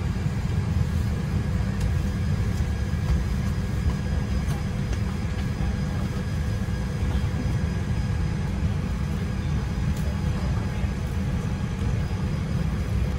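Steady low rumble of airliner cabin noise aboard a Boeing 787-8, even and unchanging throughout.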